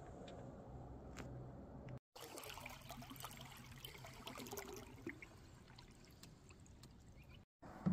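Faint water sounds from a paddled canoe: water trickling and dripping off the paddle blade and lapping at the hull, with scattered small splashes and clicks. A single sharp knock comes at the very end.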